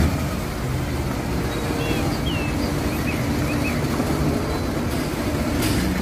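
Concrete mixer truck's diesel engine running steadily as the truck drives slowly.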